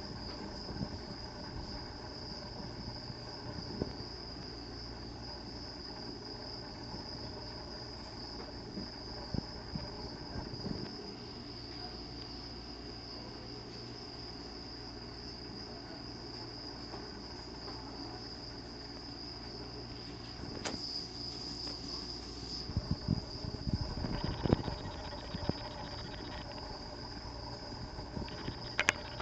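A steady, high-pitched whine held on one note, over a low hum, with a few soft knocks about three-quarters of the way through.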